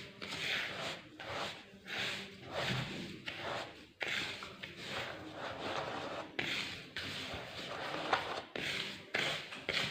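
Hands rubbing coarse semolina and sugar together in a bowl: repeated gritty rubbing strokes, roughly one or two a second, the grains being worked so the sugar blends into the semolina.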